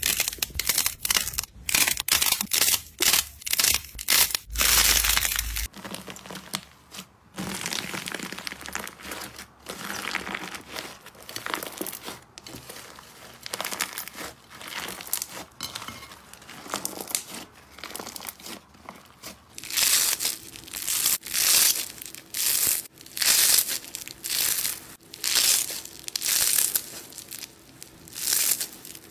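Slime and squishy toys squeezed and kneaded by hand, making a run of crackling, crinkly sounds. The texture changes at about six seconds and again near twenty seconds, and the last part comes in regular squeezes about once a second.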